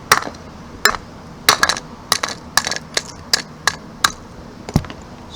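A hammer striking a block of ice frozen in a cereal bowl, about a dozen sharp, irregular knocks chipping at the ice to free the fidget toys frozen inside.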